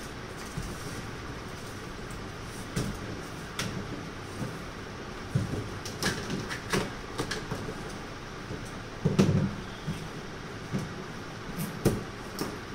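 Cardboard bicycle carton being unpacked by hand: plastic packing straps pulled off and cut, giving irregular clicks, rustles and knocks. The loudest is a dull thump about nine seconds in.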